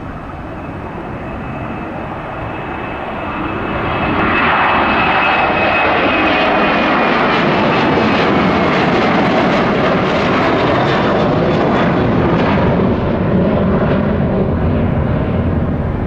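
Boeing 737-800's CFM56 jet engines at takeoff power as the airliner departs, a steady jet noise with a high whine that swells sharply about four seconds in and stays loud, the whine sinking slightly in pitch.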